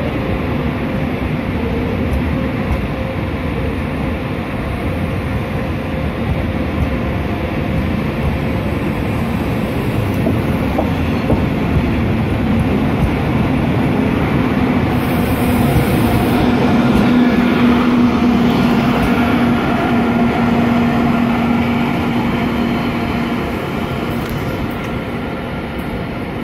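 Deutsche Bahn Intercity train rolling past, a steady rumble of wheels on rail. A humming tone comes up over the rumble a little past the middle, and the sound grows louder there before easing near the end.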